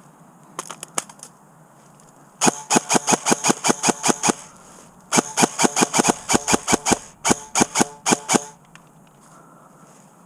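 Airsoft rifle firing in three rapid strings of shots at about six a second, the last string shorter, after a few faint clicks.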